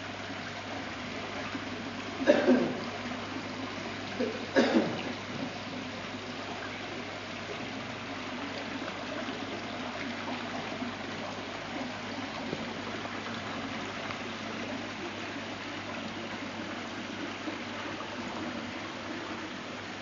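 Water from an artificial rock waterfall fountain trickling and splashing steadily into its small basin, over a faint low steady hum. Two short, louder noises break in about two and four and a half seconds in.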